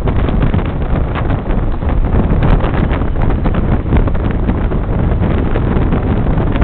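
Wind buffeting the microphone over a steady rumble of city traffic.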